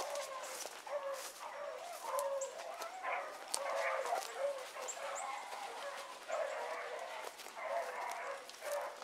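Rabbit dogs baying, call after call overlapping with no break, as they run a rabbit on its scent trail.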